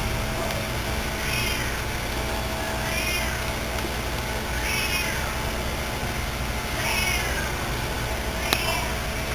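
A cat meowing over and over, five calls about every two seconds, each rising and then falling in pitch, over a steady hum; a sharp click near the end.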